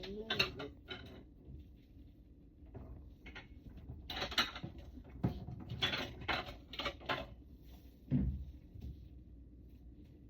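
Cutlery clinking and scraping against a plate in scattered short bursts, with a dull thump about eight seconds in.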